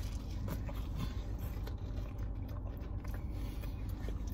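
Two people biting into and chewing peach mango fried hand pies, with small crackling clicks from the pastry crust over a steady low hum.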